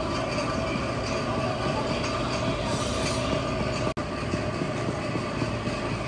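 Steady mechanical rumble with a faint hum, breaking off for an instant about four seconds in.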